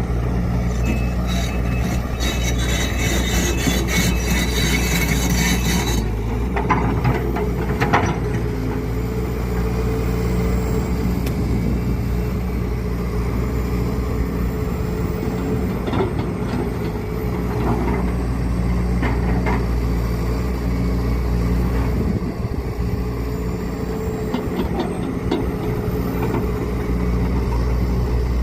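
Excavator's diesel engine running steadily under load, with clatter and knocks from the machine at work loading a truck: a dense rattle in the first few seconds, then single knocks about eight, sixteen and nineteen seconds in.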